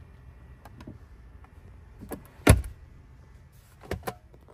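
Interior trim of a 2017 BMW 740i being worked by hand: a couple of light clicks, then the glovebox lid shut with a single solid thump about halfway through. Near the end, two quick clicks as the centre-console armrest lid's latch is released.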